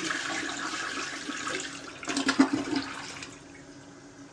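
Toilet flushing: water rushes loudly from the tank into the bowl, with a few knocks about two seconds in, then drops to a quieter steady hiss in the last second as the tank starts to refill through the newly installed fill valve.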